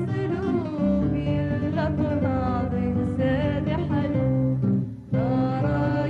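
A woman singing a Kabyle song with guitar accompaniment. The sound drops out briefly about five seconds in, then the song carries on.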